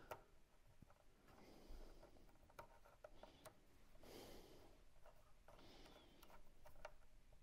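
Near silence with faint scattered clicks and soft rustling: a small screw being turned in by hand with a screwdriver.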